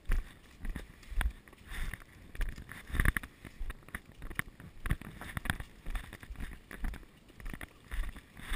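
Rhythmic thumps and knocks, about two a second, from a body-worn action camera jostling as its wearer moves along a concrete path.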